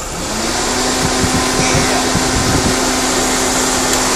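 A motor spins up with a short rising whine and settles into a steady hum under a loud whirring hiss, with a few low thumps midway.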